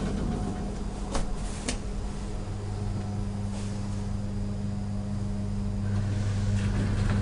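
Steady low electrical machinery hum, with a few short clicks about a second in and again midway; the hum grows a little louder near the end.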